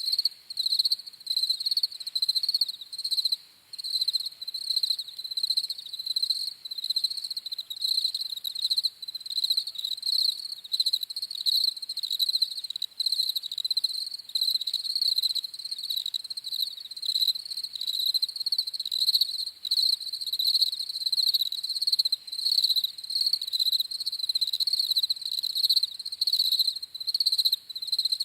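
Crickets chirping in a continuous, rapidly pulsing high trill.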